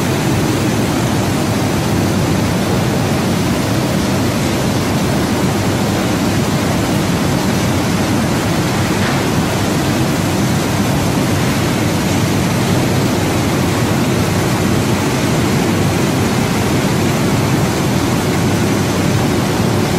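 Mushroom pre-cooking line running: a loud, steady, even machine noise, deepest in the low range, with no separate knocks or clicks.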